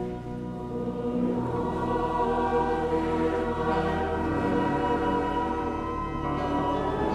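A choir singing a worship song with musical accompaniment, the voices holding long notes.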